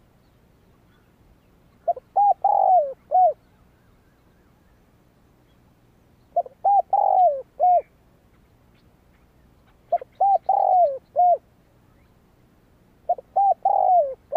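Spotted dove cooing: four song phrases, one about every four seconds. Each phrase is a few quick short coos, a longer drawn-out croo, then one last short coo.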